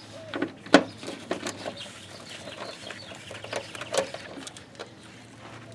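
Plastic wheel well liner being worked free and pulled out of the fender: irregular sharp clicks and rustling, with the loudest click about a second in and another near four seconds.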